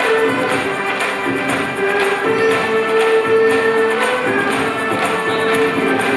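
Live ensemble music: djembe hand drums and light percussion keep a steady beat under a melody of long held notes, with guitars, flute and keyboard in the band.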